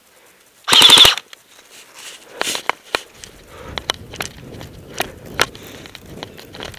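Airsoft electric AKS74U firing a short full-auto burst of about half a second, a rapid string of sharp cracks, under a second in. From about three seconds in, footsteps crunching through snow with rustling gear and scattered clicks.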